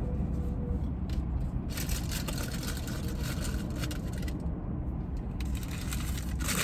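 Paper packaging crinkling and rustling as it is handled, in two spells, the first about two seconds in and a shorter one near the end, over a steady low rumble inside the car.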